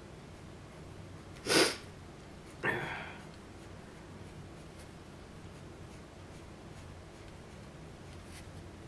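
Two short, sharp breath noises through the nose near the microphone, one about a second and a half in and a softer one about a second later, over faint pencil scratching on sketchpad paper.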